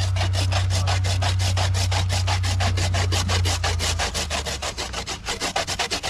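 Coconut flesh being scraped on a hand grater in quick, even strokes, about seven a second. A low steady hum runs underneath and drops away about four seconds in.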